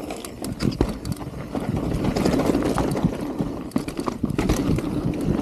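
Mountain bike descending a rough, rocky dirt trail at speed: tyres rolling over dirt and stones, with frequent short knocks and rattles from the bike over the bumps.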